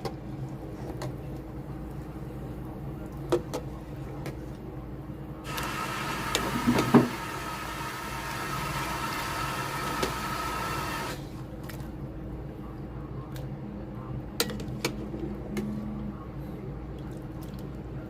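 Kitchen work: scattered clicks and knocks of utensils and pots over a steady low hum. About five seconds in, water starts running and stops abruptly some five seconds later, with a loud clunk about seven seconds in.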